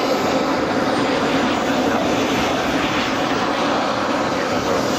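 Turbine engine of a radio-controlled model jet in flight overhead: a steady rushing jet noise that holds at a constant level.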